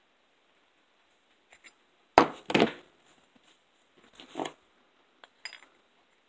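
Handling knocks and clinks of a machined metal block and an outside micrometer as the block is turned and refitted between the micrometer jaws: two louder knocks about two seconds in, another a couple of seconds later, then light clicks.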